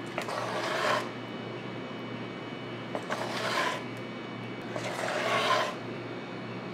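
Metal spoon stirring thick plantain-and-jaggery batter in a stainless steel bowl: three separate strokes about two seconds apart, each a short scrape against the bowl that starts with a click.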